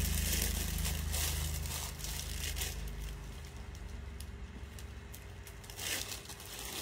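Crinkling rustle of clothes packed in plastic bags being handled, over a low hum that fades out about halfway through.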